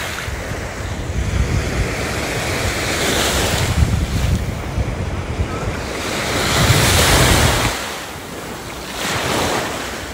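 Small waves breaking and washing up a sandy beach, the rush swelling and fading in surges, with wind rumbling on the microphone.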